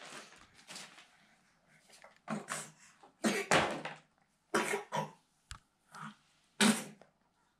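A string of short coughs, roughly one a second, starting about two seconds in.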